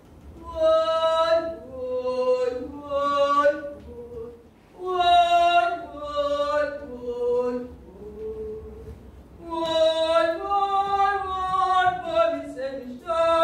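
A woman singing unaccompanied, a slow melody of held notes in about four phrases with short breaks between them.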